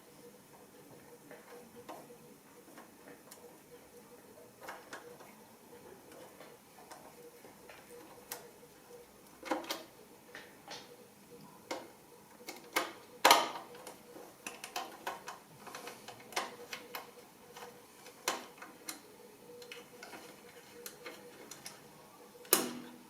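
Scattered small clicks and ticks of a precision screwdriver turning out the mounting screws of an SSD in a PC case, with a few sharper metal knocks, the loudest about 13 seconds in and another near the end.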